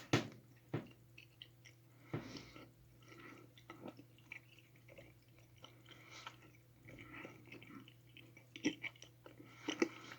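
A person chewing a mouthful of giant cherry gelatin gummy bear close to the microphone: irregular sticky, wet mouth smacks and clicks, with one sharp knock right at the start. A steady low hum runs underneath.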